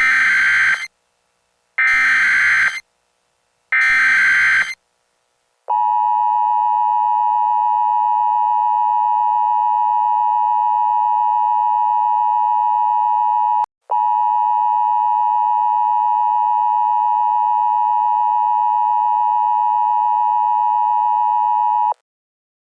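Emergency Alert System tones: three bursts of SAME header data, each about a second long and about two seconds apart, then the steady two-tone attention signal (853 and 960 Hz) held for about 16 seconds, with a brief break about halfway through.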